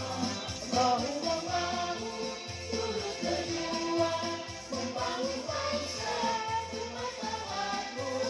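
Singing over recorded backing music: a wavering sung melody above a bass line that comes in and drops out in regular blocks.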